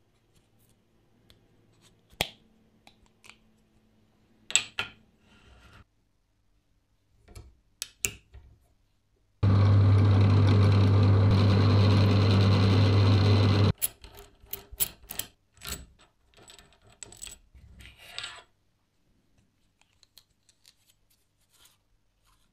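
Small metal parts and tools clicking and tapping as they are handled, with a machine in the workshop running steadily and loudly for about four seconds midway, starting and stopping abruptly.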